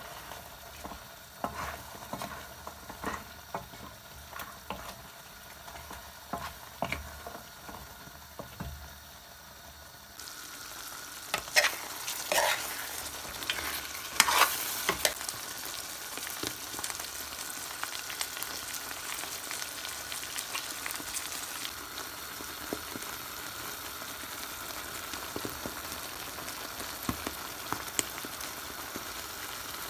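Goat stew sizzling and simmering in a pan while a spoon stirs through it, with scattered knocks and scrapes of the spoon against the pan. The sizzle gets louder about ten seconds in, with a run of louder scrapes shortly after.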